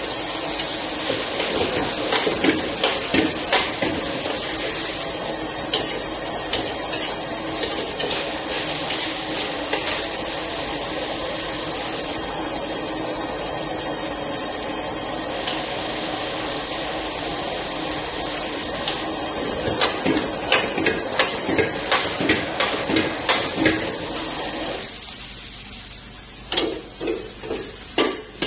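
Squid stir-frying in a large wok over a gas burner: a loud, steady hiss of sizzling and burner flame, broken by runs of quick metal clanks from the spatula against the wok, about three a second. The steady hiss drops away sharply about 25 seconds in, leaving the spatula clanks.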